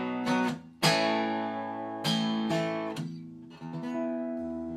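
Acoustic guitar strumming the closing chords of a country song, a few sharp chords followed by the last ones ringing on and slowly fading.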